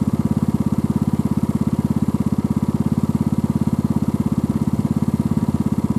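Small vehicle engine idling steadily, with an even, rapid pulse.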